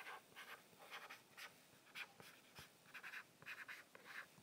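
Faint, short scratching strokes of a stylus writing by hand on an iPad's glass screen, coming in irregular runs.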